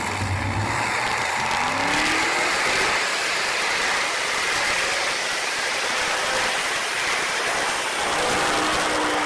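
Competition pulling tractor's engine revving up and then running flat out as it drags the weight sled down the track. The pitch climbs about a second in, then settles into a loud, steady noise.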